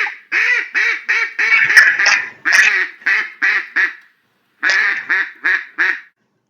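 Duck quacking: a quick series of short, nasal quacks, about three a second, in two runs with a brief pause in between.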